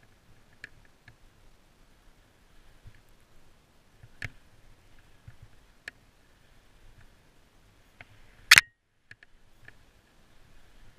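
Faint sound of skis running through snow, picked up by a first-person camera, with scattered small clicks and knocks and a faint steady whine. One loud, sharp knock comes about eight and a half seconds in.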